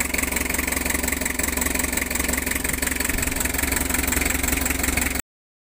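Isuzu 4BA1 four-cylinder diesel running steadily with a fast, even clatter, freshly top-overhauled and left running to break in the new piston rings and cylinder liners. The sound breaks off abruptly near the end.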